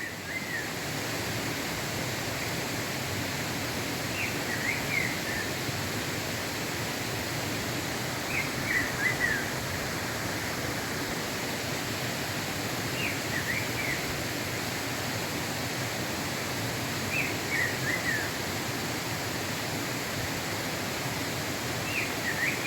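A bico-de-pimenta singing: short phrases of a few quick descending whistled notes, repeated about every four seconds, over a steady rushing hiss.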